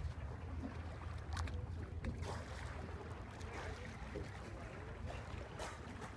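Low, steady rumble of a boat under way, with water noise and a few short sharp clicks.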